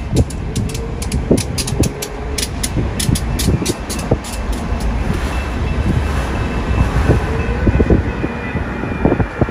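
Freight train cars rolling past, wheels clicking sharply over rail joints above a steady low rumble. The clicking thins out about halfway through, and a faint thin whine comes in.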